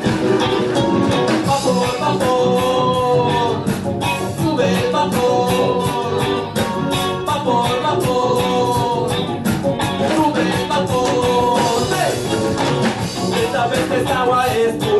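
Reggae band playing a song: a singer over electric guitars, bass and drums with a steady beat.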